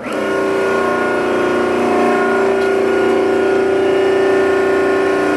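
Hydraulic press power unit (electric motor and pump) starting abruptly and running steadily with a constant hum and whine.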